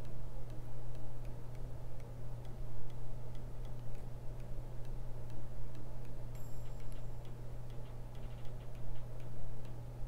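Faint, regular ticking, about two ticks a second, over a steady low hum.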